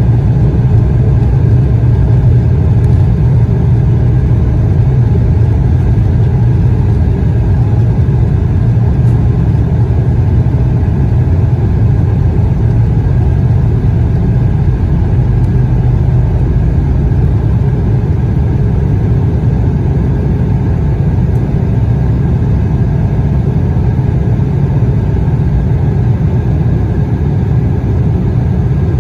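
Embraer E175's GE CF34 turbofan engines at takeoff thrust, heard from inside the cabin over the wing: a loud, steady, deep rumble as the jet accelerates down the runway and climbs out.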